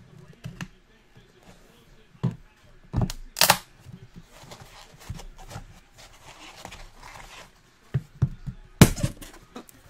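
Trading cards and their packaging handled on a table: a few sharp clicks and taps, a brief rustle about three and a half seconds in, and a loud snap near the end.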